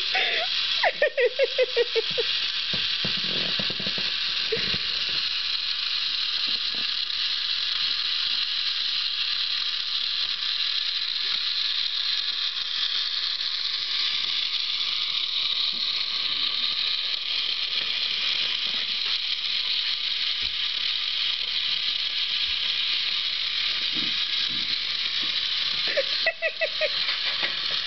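Battery-powered toy train engine's small motor and plastic gears running steadily, a continuous gear whir.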